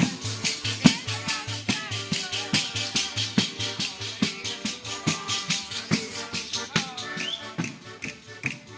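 Music with a fast, even shaken-rattle beat of about five strokes a second over a repeating low bass line and a wavering melody. It grows fainter near the end.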